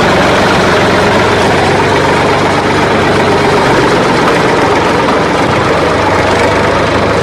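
Tractor engine idling steadily: a loud, even running sound with a low, constant pitch.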